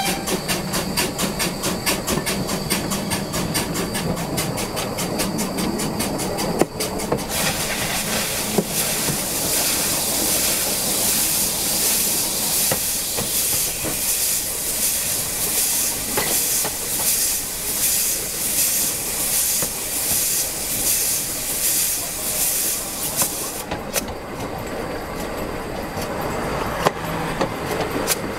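Narrow-gauge steam locomotive Spreewald under way, its exhaust beating rapidly and evenly over a steady hiss of steam. About seven seconds in the hiss grows louder. Near the end it cuts off, leaving the wheels running on the rails with a few sharp clicks at rail joints.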